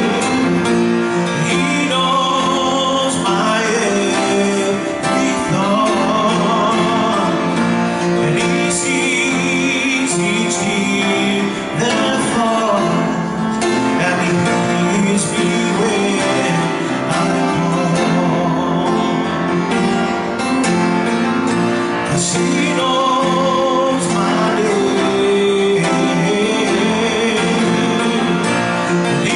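A man singing a slow song with vibrato over instrumental accompaniment.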